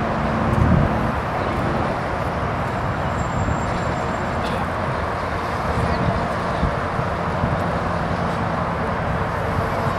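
Steady hum of freeway traffic on a long elevated bridge, an even wash of tyre and engine noise without breaks.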